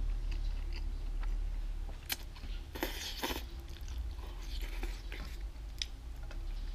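A person slurping noodles and chewing with wet mouth smacks, including a longer double slurp about three seconds in.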